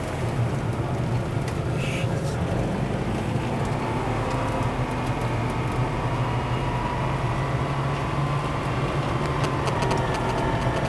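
Ferrari 456M's V12 engine running steadily under light load, heard from inside the cabin with road noise.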